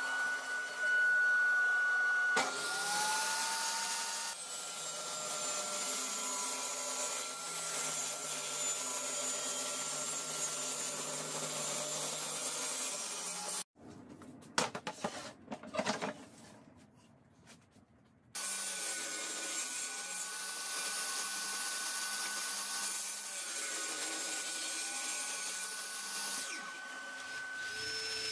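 Bagless vacuum cleaner drawing through a barrel cyclone dust separator, spinning up at the start and then running with a steady high whine. A few seconds past the middle it cuts out, quieter uneven noise follows for a few seconds, and then the steady whine resumes.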